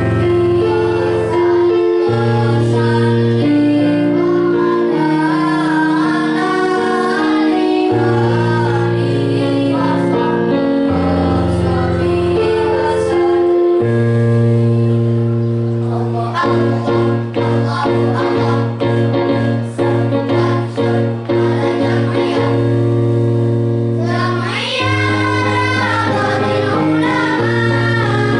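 Children's choir singing with musical accompaniment, mostly in long held notes; for several seconds around the middle the voices switch to short, quickly repeated notes.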